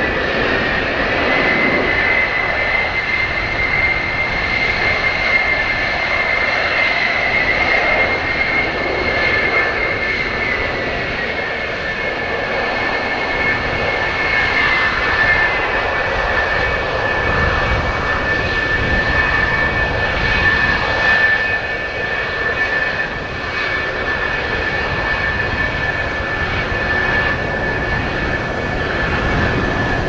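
Twin General Electric J79 turbojets of an F-4EJ Kai Phantom running at low power with a steady jet roar and high whine, as the jet moves from the last-chance check out toward the runway. The whine drops slightly in pitch about halfway through. Gusts of wind buffet the microphone with low rumbles in the second half.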